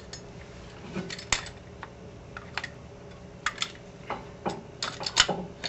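Irregular metallic clinks and taps from a steel C-clamp and an old brake pad being set against a rear disc brake caliper, ready to press the piston back. About a dozen sharp knocks, the loudest near the end.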